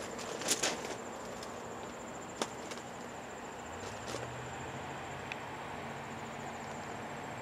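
Insects trilling steadily in a high, rapidly pulsing tone, with a few footsteps crunching on gravel ballast in the first second and a faint low hum in the middle.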